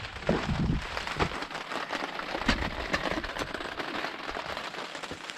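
Rain falling, a steady patter of many small drop ticks, with a few low thumps near the start.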